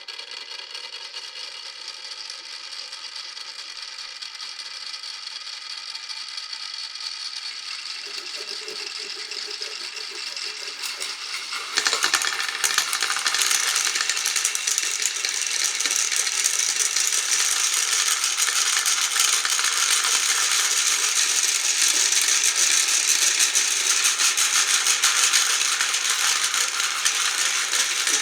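Many glass marbles rolling and clattering down wooden and plastic marble-run tracks in a dense, continuous rattle. It steps up suddenly and grows fuller about twelve seconds in.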